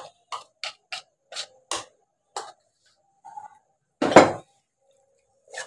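A wooden spatula knocking and scraping against a plastic cup as thick whipped yogurt is emptied into a cooking pan: about six short clicks in the first two and a half seconds, then one louder knock about four seconds in.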